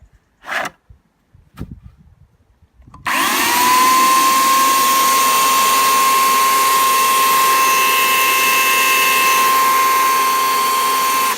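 Bosch AKE 35 S electric chainsaw switched on after a few brief handling sounds. Its motor spins up in a quick rising whine about three seconds in, runs at a steady high pitch with no load, and drops off just before the end.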